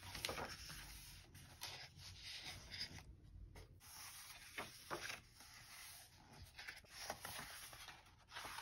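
Faint rustling and flicking of paper pages being turned by hand in a bound photo-book diary, in short irregular bursts.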